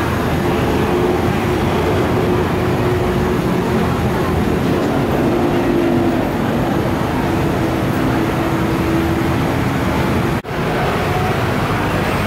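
Steady street traffic noise from passing vehicles, with a held motor hum through most of it. The sound cuts out for an instant near the end.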